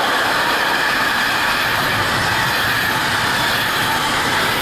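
Container wagons of an intermodal freight train rolling past on the track, a steady rail and wheel rumble as the tail end of the train goes by.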